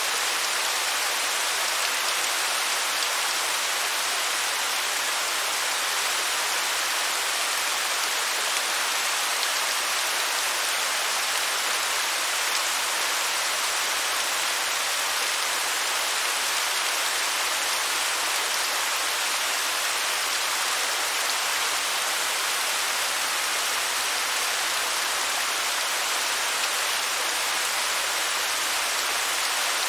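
Waterfall: a steady, unbroken rush of falling water, a bright hiss with little low rumble.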